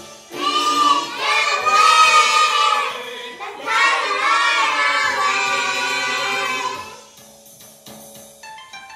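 Children singing a song together. The singing stops about seven seconds in, and a few short plucked notes start near the end.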